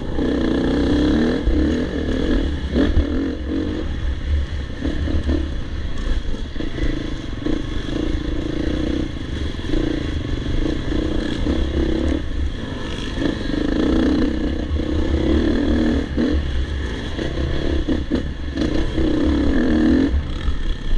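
Off-road dirt bike engine heard from the rider's helmet, revving up and backing off every second or two as the throttle is worked, with rattling knocks from the bike over the rough trail.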